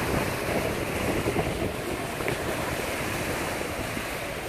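Wind-driven lake waves breaking on the shore and washing over a flooded dock, with wind buffeting the microphone.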